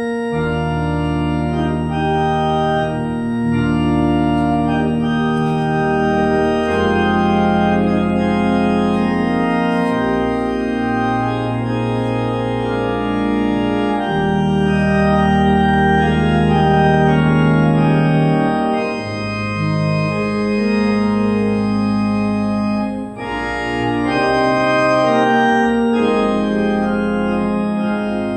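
Organ playing slow sustained chords over a held low bass, the harmony changing every second or two, with a brief break about three-quarters of the way through.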